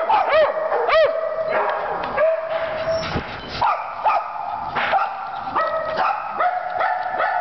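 Small dogs barking and yipping excitedly: quick high yips, several in the first second, mixed with long drawn-out whining cries.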